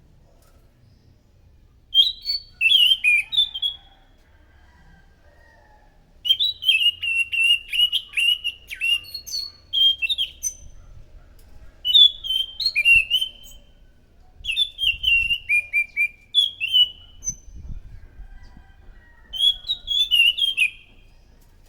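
Anis macan thrush singing: about five bursts of quick, fluttering whistled notes, separated by short pauses.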